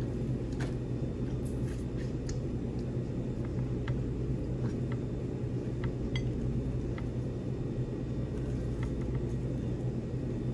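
A steady low room hum with a few faint, scattered clicks and clinks of cutlery and dishes at a dining table.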